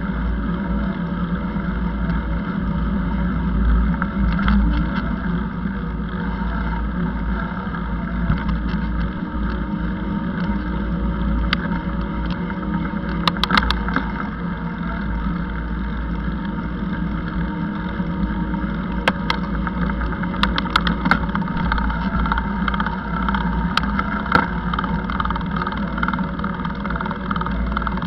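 Steady rumble and vibration noise of a camera riding along a paved path, the kind of wind and road noise a ride-mounted camera picks up. Sharp clicking rattles come a few times about halfway through and again later on.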